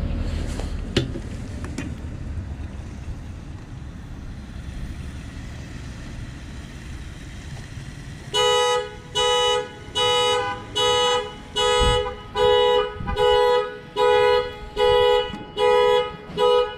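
Car alarm sounding a two-tone car horn in short, evenly spaced blasts, a little more than one a second, starting about halfway through. Before the horn starts there is a low steady rumble.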